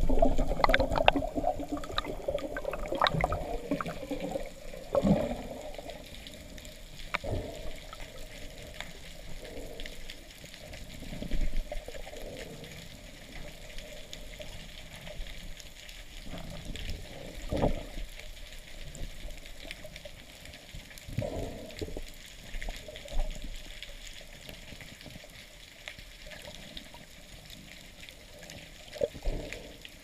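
Underwater water noise through a camera's waterproof housing: swirling, sloshing water busiest in the first few seconds, with scattered dull knocks and thumps from a diver swimming and handling the spear line.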